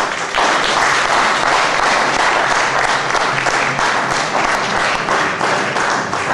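Theatre audience applauding: many hands clapping at once, swelling up quickly at the start and then holding steady.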